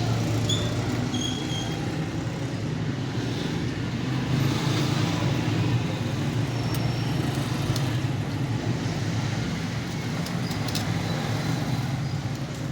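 Steady low hum of road traffic and engines, with a few light clicks about seven and ten seconds in.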